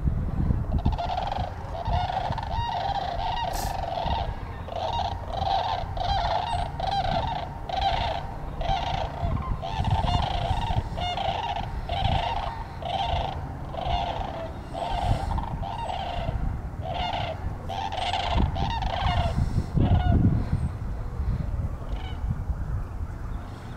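Sandhill cranes calling: a rolling, rattling call repeated over and over, roughly one and a half a second, stopping about twenty seconds in, over a low rumble.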